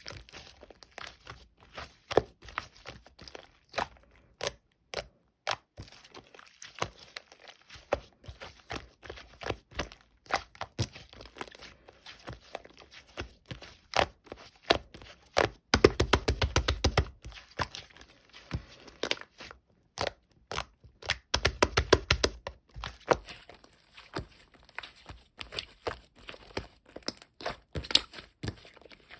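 Slime being squeezed, pressed and pulled by hand, giving many small sticky clicks and pops at an uneven pace, with two denser, louder flurries of crackling about halfway through and about three quarters through.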